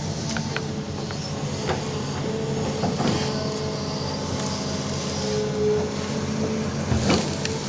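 Amphibious excavator's diesel engine running steadily under work, with a mid-pitched whine that comes and goes and a few knocks and clanks, the loudest near the end.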